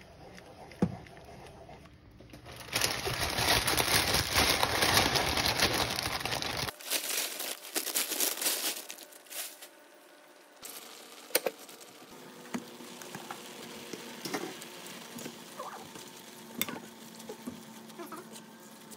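Sauce for pancit boiling hard in a pan, a loud bubbling hiss lasting a few seconds. Then dry noodles go in with crackly rustling, followed by a wooden spoon clicking and knocking against the pan as the noodles are stirred.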